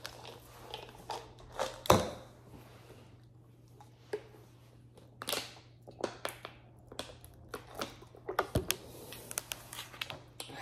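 Scattered clicks and knocks of small objects being handled and set down, with a louder knock about two seconds in and another near the end, over a faint steady hum.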